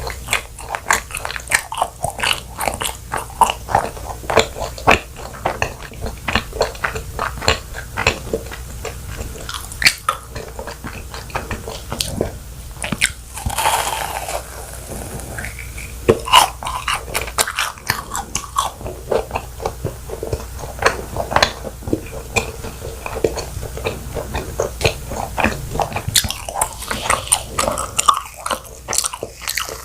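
Close-miked chewing of fried cheese balls made from donut-mix dough: a steady run of rapid crunchy bites and chews on the crisp crust.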